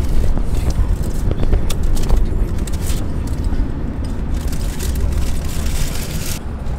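Car driving, heard from inside the cabin: a steady, loud low rumble of road and engine noise.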